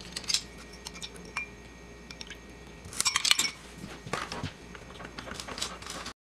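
Light clinks and clicks of glass and kitchen utensils being handled against a ceramic bowl, with a denser run of clinks about three seconds in. The sound cuts off abruptly near the end.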